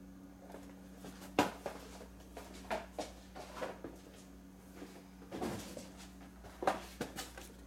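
Handling noises of carded action-figure blister packs being taken away, picked up and set down: scattered clicks and knocks, the sharpest about a second and a half in and again near the end, over a steady low hum.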